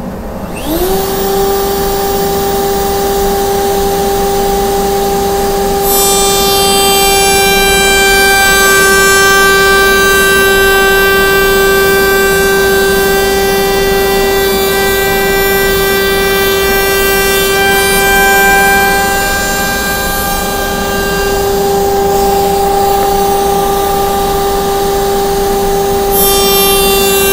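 Table-mounted router spinning up about half a second in, then running with a steady high whine. From about six seconds in, and again near the end, the rougher sound of the stile-and-rail bit cutting the ends of cedar stiles joins the whine.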